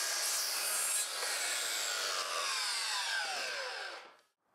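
Cordless sliding miter saw finishing a cut through a window sill board, then, about a second in, the trigger is let go and the blade and motor spin down with a falling whine that dies away over about three seconds.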